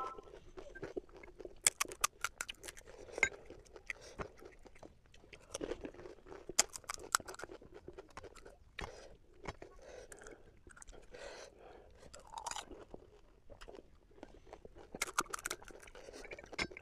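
Someone chewing pani puri close up: crisp crunches of the fried hollow puri shells come in irregular clusters between duller chewing.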